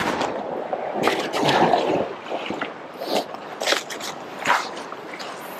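Magnet-fishing rope being hauled in hand over hand across a snow-covered wooden railing: an uneven series of rustling scrapes from rope, gloves and snow.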